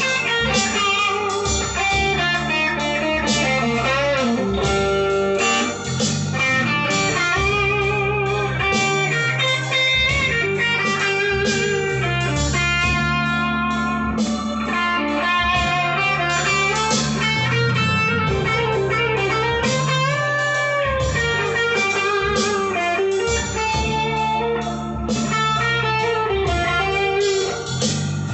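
Grote Les Paul-copy electric guitar playing bluesy lead lines, with string bends and vibrato on held notes, over steady low bass notes.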